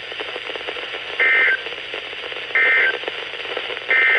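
Three short bursts of EAS digital data tones, a buzzy two-pitch warble, about a second and a half apart, over steady radio static: the End of Message code that closes a NOAA Weather Radio alert.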